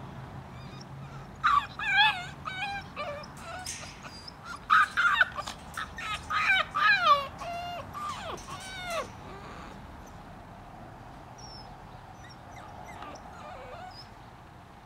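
English bull terrier puppies yipping and whining: a run of short, high-pitched calls, many sliding down in pitch, from about a second and a half in until about nine seconds in, then fading out.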